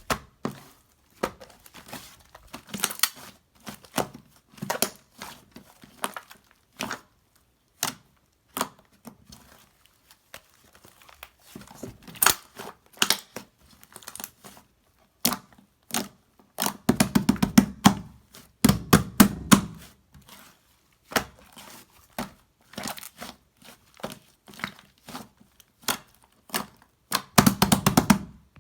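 Slime being squished and poked by hand: quick crackling clicks and pops in irregular clusters, with a few heavier squishing presses around the middle and near the end.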